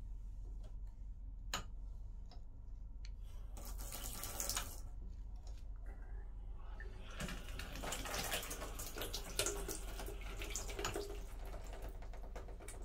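Chrome thermostatic bath mixer tap worked by hand: a click from the handle, then water running from it into the tub in two spells, a short one and then a longer one of several seconds.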